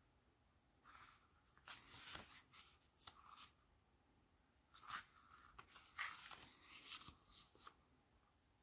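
Paper pages of a hardcover book being turned by hand: two faint rustling page turns, one about a second in and another about five seconds in, each with small crisp clicks of the paper.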